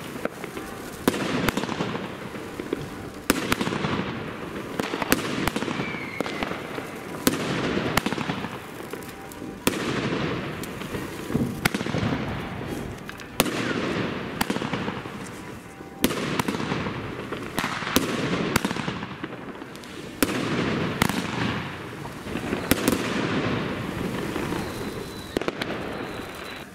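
Consumer fireworks cake firing shot after shot, a sharp report roughly every one to two seconds, each followed by about a second of crackling from the bursting glitter stars.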